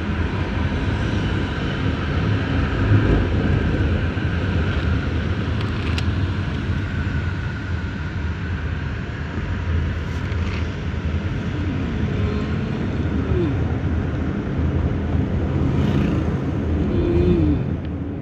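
Steady engine and tyre rumble heard from inside a moving car, with brief faint voices now and then.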